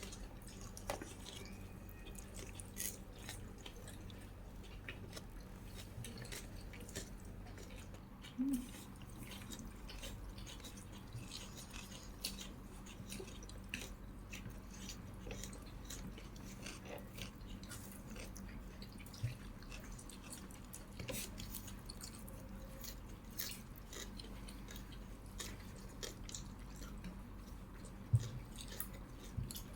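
Close-miked chewing and wet mouth sounds of a person eating, made up of many small irregular clicks, with a louder knock about eight seconds in and another near the end, over a steady low hum.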